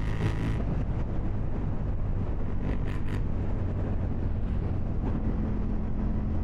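KTM 790 Duke's parallel-twin engine running steadily.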